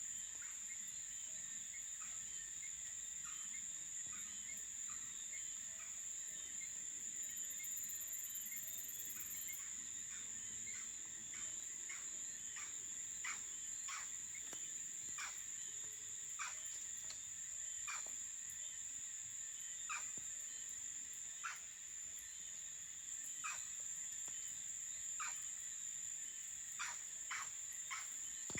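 Night crickets trilling steadily and high, with a faster repeated chirping lower down, while a campfire gives sharp scattered crackles that come more often in the second half.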